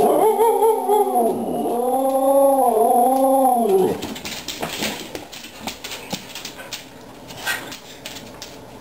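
A dog yodelling for a treat: a drawn-out, warbling call that swings up and down in pitch several times and lasts about four seconds. After it stops, only scattered light clicks and taps.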